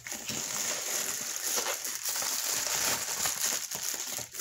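Plastic poly mailer envelope being pulled open and handled, a continuous irregular crinkling and crackling of the plastic.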